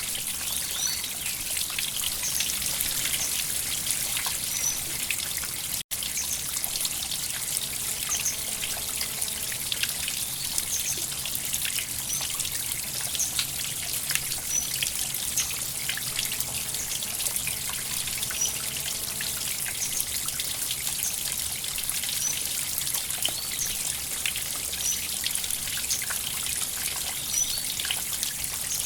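River water trickling and babbling steadily, with faint high chirps recurring every second or two. The sound cuts out for an instant about six seconds in.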